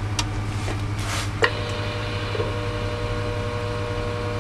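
Steady electrical hum from a CB radio test bench, with a few sharp clicks of switches or a mic key. About a second and a half in, a click sets off a steadier, louder buzzing hum that holds to the end.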